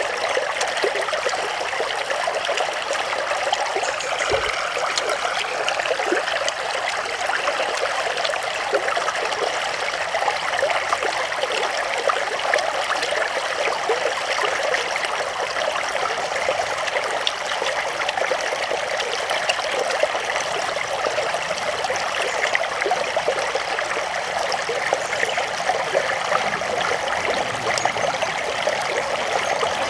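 Stream water running steadily, an even rushing and trickling of flowing water.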